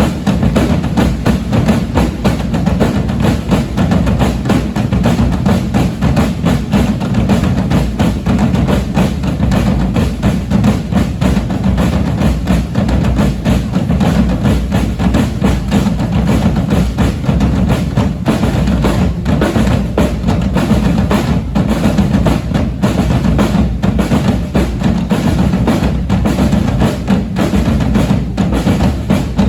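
Drum ensemble playing a dense, driving groove of bass drums and higher percussion, with many fast strokes packed close together. It comes in loud all at once.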